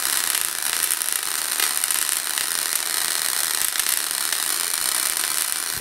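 Small homemade Tesla coil's spark discharge from the tip of its secondary, a steady high crackling hiss.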